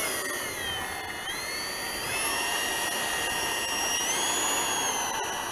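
Electric ducted fan of a Freewing F-86 Sabre RC jet whining as it taxis on the ground. Its pitch dips about a second in, rises twice and falls again near the end as the throttle is worked.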